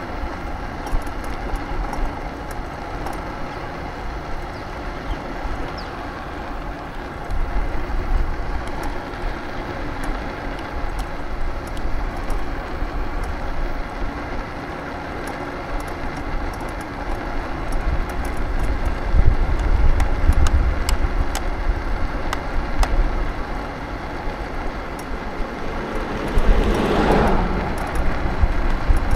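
Road traffic with wind rumbling unevenly on the microphone. Near the end a motor vehicle's engine swells and passes close by, its pitch rising.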